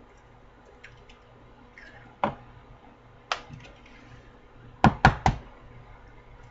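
Sharp knocks of eggs and plastic containers being handled on a countertop: single knocks about two and three seconds in, then three quick taps about five seconds in as an egg is cracked against the rim of a plastic bowl.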